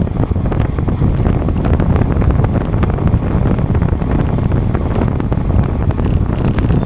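Wind buffeting the microphone of a camera carried on a moving bicycle: a loud, steady rumble with crackling.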